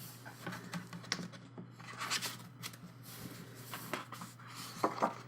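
Album packaging being handled: irregular rustling and scraping of paper and plastic, with scattered light clicks and taps.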